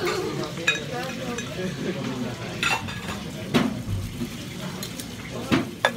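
Small ceramic plates being handled and set down, with a handful of sharp clinks, over the steady chatter of a full restaurant.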